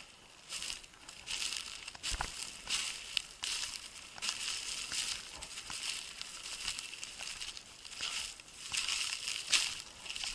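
Footsteps crunching through dry grass and patches of crusty old snow at a steady walking pace, a rustling crunch with each step. One sharp knock about two seconds in.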